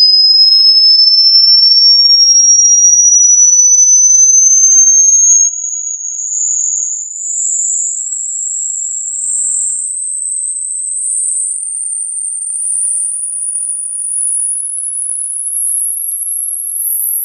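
Hearing-test tone: a single pure sine tone sweeping upward in pitch from high to very high, for finding the upper limit of hearing. About five seconds in it drops noticeably in loudness and from then on climbs in small steps rather than a smooth glide.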